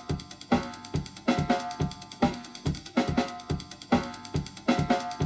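Band music with a steady drum-kit beat of kick, snare and hi-hat, with pitched chords sounding on each beat.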